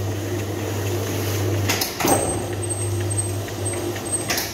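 Electric dough sheeter running, its motor humming steadily as the rollers and conveyor belt carry a sheet of cookie dough through a 7 mm gap. There is a clunk about two seconds in, and the machine stops near the end.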